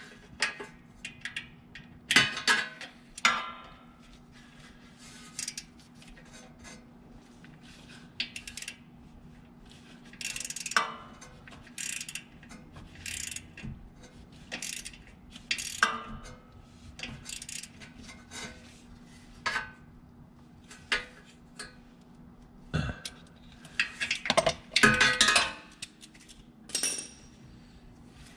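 Metal hand tools clinking, tapping and scraping as small screws are tightened with a wrench, in irregular short clicks with no steady rhythm.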